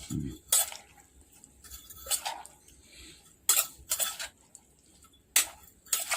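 Pestle knocking and mixing in a mortar as papaya salad with rice noodles is pounded together: about six irregular sharp knocks with quiet gaps.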